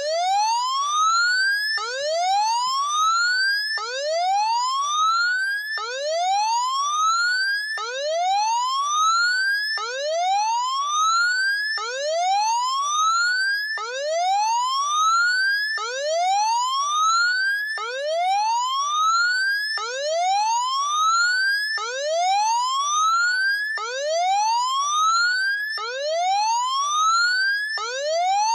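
Electronic warning siren sounding a severe weather alert: a whooping tone that rises from low to high over about two seconds, then drops back and starts again, over and over.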